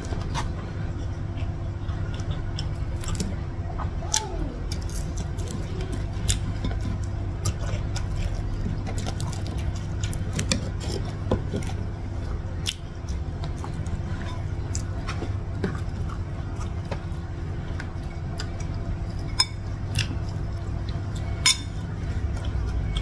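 Close-up eating sounds: chewing and short mouth and finger clicks from eating rice and side dishes by hand, with light clinks of dishes, over a steady low hum. Two sharper clicks stand out near the end.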